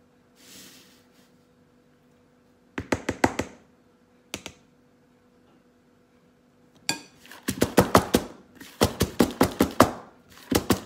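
Round metal cake pan full of sponge batter knocked repeatedly against the worktop to level the batter, in fast runs of sharp knocks filling the second half. A shorter cluster of knocks comes about three seconds in.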